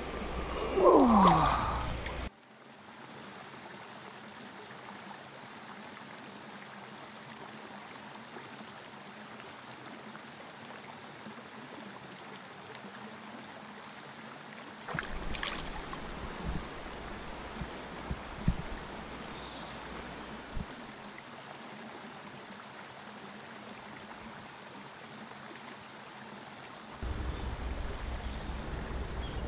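River water running and trickling over stones in a steady hiss, with a few soft knocks and splashes from handling at the water's edge about halfway through. It opens with the tail of a burst of music that falls in pitch and cuts off after about two seconds.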